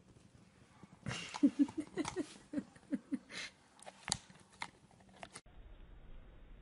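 A dog chewing on a dry chew, with crackling bite sounds and, about a second in, a run of short low grunting calls.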